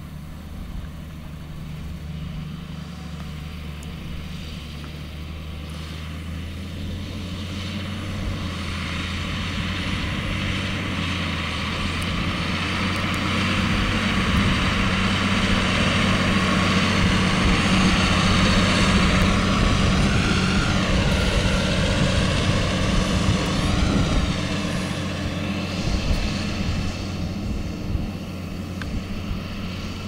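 Claas Arion 610 tractor with a mounted plough running, getting louder as it comes near. A higher whine falls and then rises again in pitch about two-thirds of the way through, and the sound eases off near the end.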